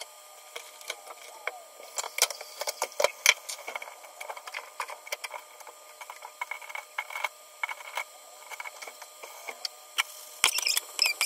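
Soy-marinated beef brisket sizzling in a nonstick frying pan, with scattered irregular pops and crackles as its sauce cooks down. About ten and a half seconds in, metal tongs turn the meat and the crackling becomes denser.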